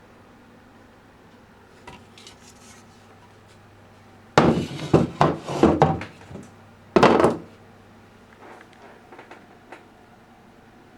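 Hard parts, likely metal, handled and knocked together in a clatter of sharp knocks. It is loudest in a cluster from about four to six and a half seconds in and again at about seven seconds, with lighter ticks before and after.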